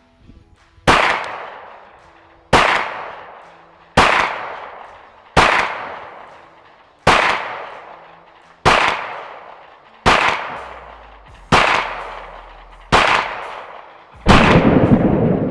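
Ten pistol shots at a steady pace, about one every second and a half, each cracking out and ringing off in a long echo. This is a string of aimed fire, ten rounds within twenty seconds, at a distant target. The last shot, near the end, is the heaviest and rings longest.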